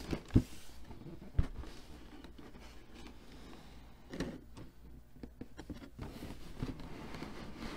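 Cardboard model-kit box being set down and handled on a table mat: two sharp knocks in the first second and a half, then quieter scraping and rustling.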